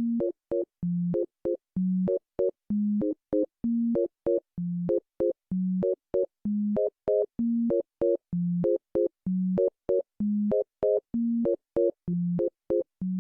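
Electronic synth music of plain beeping tones: a low note followed by two short, higher blips, the pattern repeating about once a second.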